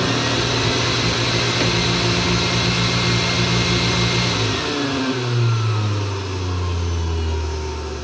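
Blender motor running fast on a voltage tap of a homemade transformer speed selector. About halfway through, the selector moves to a lower-voltage tap and the motor drops to a slower speed, its whine falling in pitch.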